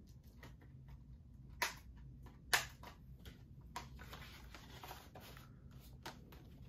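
Handling of a plastic Blu-ray case and its discs: soft clicks, two sharper plastic snaps in the first few seconds, then a few seconds of light rustling and sliding.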